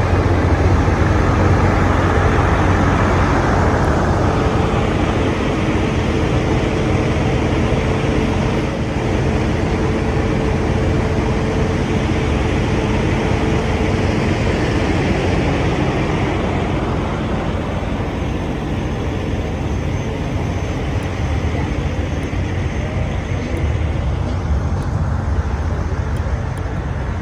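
Steady low rumble of a running truck engine at idle, with a steady hum from about four seconds in that stops around fifteen seconds.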